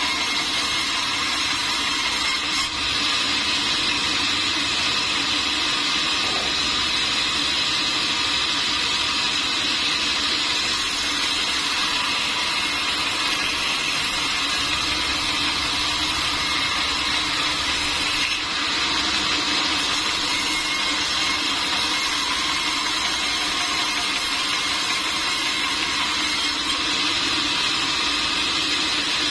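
Sawmill saw machinery running steadily: a loud, even machine noise with faint steady tones, dipping briefly twice.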